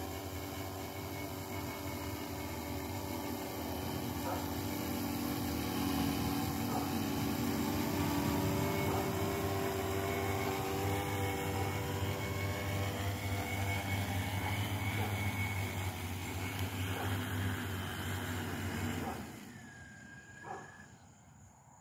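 Arris M900 quadcopter's electric motors and propellers buzzing steadily as it hovers and comes down to land, then cutting off suddenly about nineteen seconds in once it is on the ground.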